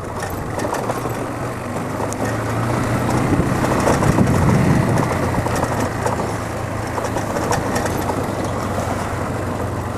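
Motorcycle engine running at low speed while riding over a rough, stony dirt road, a steady low hum under a haze of road and wind noise that swells slightly about four seconds in.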